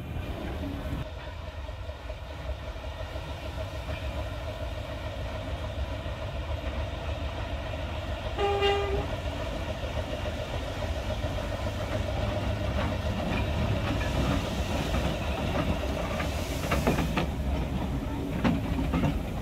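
Small steam tank locomotive and its train running slowly on the rails with a steady low rumble, and one short whistle toot about eight seconds in. Near the end there is a burst of steam hiss.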